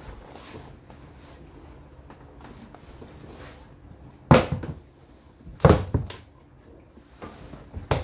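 Whirlpool WFO3P33DLXUK dishwasher running mid-cycle with a low steady hum, broken by two loud thuds about four and five and a half seconds in and a smaller knock near the end.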